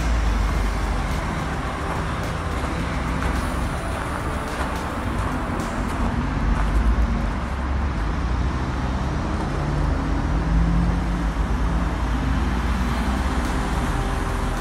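Steady low outdoor rumble, heaviest in the deep bass, with a constant noisy hiss over it.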